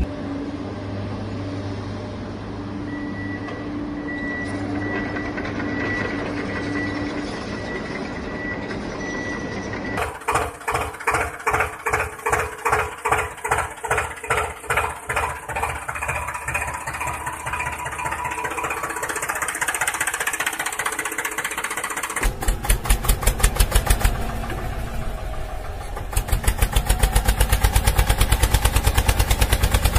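Tractor engine running: a steady hum for about ten seconds, then a slow, regular chugging, and in the last few seconds a faster, louder, even chugging.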